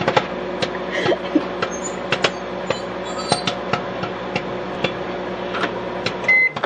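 Microwave popcorn popping inside a running Hamilton Beach microwave oven: rapid, irregular sharp pops over the oven's steady hum. Near the end the hum cuts off and a short beep sounds as the oven is stopped.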